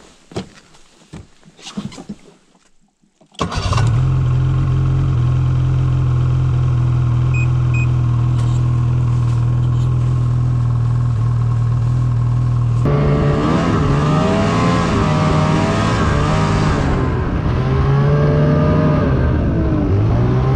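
A few knocks, then a Ski-Doo snowmobile engine starts abruptly about three seconds in and idles steadily. After about ten seconds of idling it is revved up and down repeatedly as the sled moves off.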